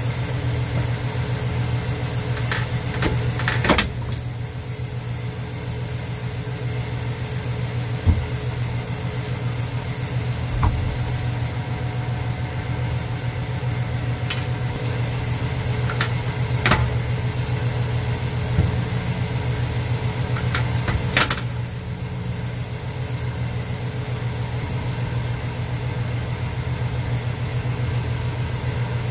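Scattered sharp metal knocks as the tractor's hydraulic lift housing is lifted and struck down to drive the cylinder head and piston out, over a steady low machine hum.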